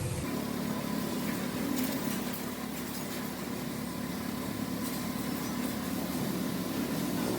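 A machine running steadily, a low hum with a thin high whine over it.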